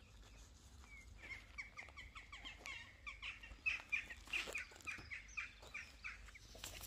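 A bird calling: a run of short, clear, repeated notes, about three or four a second, that starts about a second in and fades near the end, with a few light clicks among them.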